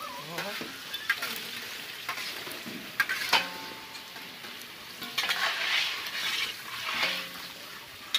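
Cut pieces frying in hot oil in a large iron kadai, sizzling, while a long-handled perforated metal skimmer stirs and scrapes them. There are a few sharp clicks of metal on the pan, and the sizzling swells louder about five seconds in.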